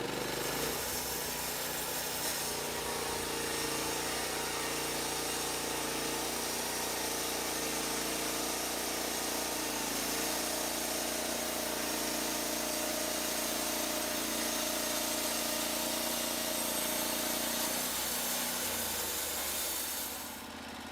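Portable band sawmill running, its engine going steadily while the band blade saws through a log. The sound dies down near the end.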